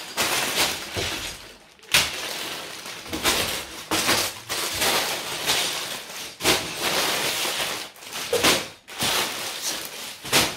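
Plastic bags full of LEGO pieces crinkling as they are handled, with the plastic bricks inside clicking and rattling against each other in quick irregular bursts.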